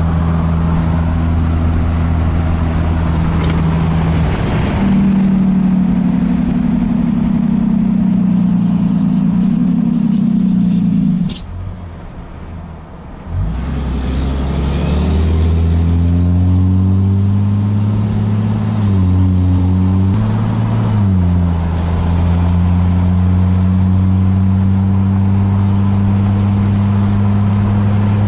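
Ram pickup's diesel engine running as the truck drives along, its pitch rising and stepping down several times as it accelerates through the gears, then holding a steady drone at cruise. About eleven seconds in, the sound drops away sharply for about two seconds.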